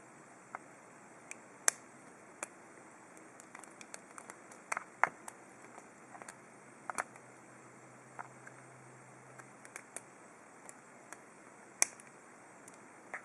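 Faint, irregular metallic clicks and ticks from a hook pick working the pin stack of an ABUS 72/40 padlock, as pins are lifted and set under tension. A few sharper clicks stand out, about two seconds in, around five seconds and near the end.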